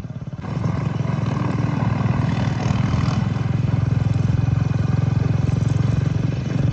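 Tractor diesel engine running hard with a fast, even beat. It gets louder about half a second in and then holds steady.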